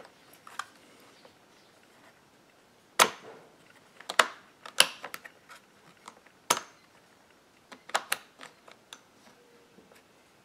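Throttle trigger of an MS660-clone chainsaw being squeezed and released by hand in a function check of a newly fitted trigger and throttle rod. There are about half a dozen sharp clicks, irregularly spaced, as the trigger and throttle snap back.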